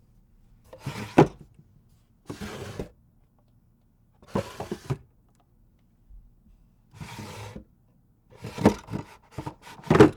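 Wooden drawer sliding open and shut six times, wood rubbing along its runners. Several strokes end in a sharp knock, the loudest about a second in and another near the end, which comes after a quick series of clicks.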